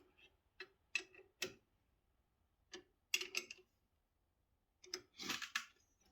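Scattered light clicks and taps from small parts and hand tools being handled while fitting a bracket, with a slightly longer rattle about five seconds in.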